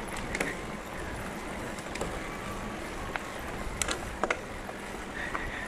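Mountain bike tyres rolling over a gravel track, a steady crunching noise broken by a few sharp clicks and rattles from the bike and loose stones.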